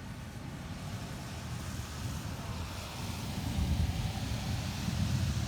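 Thunder rumbling low and building louder through the second half, over a steady hiss of rain.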